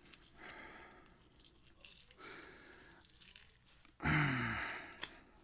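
Adhesive tape being pulled and peeled off a lock in several short crinkling, tearing strokes. About four seconds in there is a louder, brief sound that falls in pitch.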